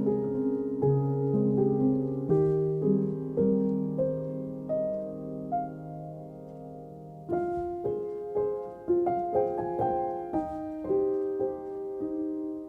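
Background piano music: slow, sustained notes and chords, softer for a moment in the middle before the notes pick up again.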